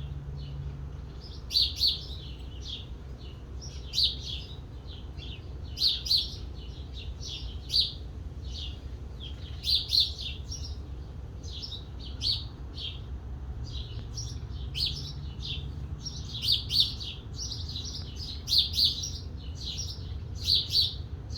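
Bird chirping: short, sharp chirps every second or two, often two in quick succession, over a steady low hum.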